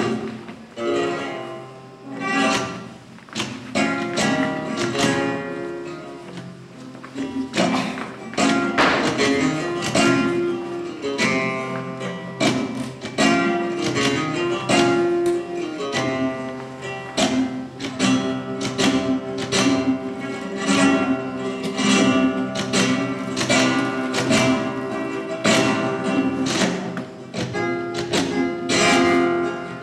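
Live flamenco music with guitar, played in sharp rhythmic strums over held melody notes, heard through a camcorder's microphone from the audience.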